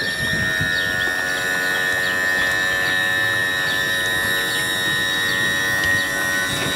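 A steady high-pitched tone, one unchanging pitch rich in overtones, that starts suddenly and cuts off just as suddenly.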